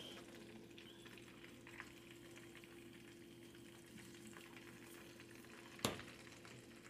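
Melted butter faintly sizzling in a frying pan, over a steady low hum. A sharp click about six seconds in.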